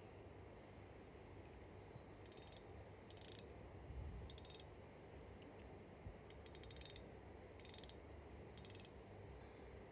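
A Shimano 19 Vanquish C3000HMG spinning reel being worked by hand: six short bursts of rapid, fine, faint ticking from its mechanism.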